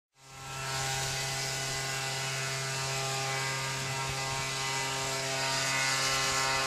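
A steady machine hum made of several held tones over an even hiss, fading in at the start and holding level throughout.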